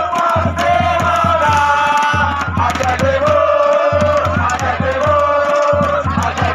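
A crowd of sports supporters chanting and singing together in unison, with sharp beats throughout.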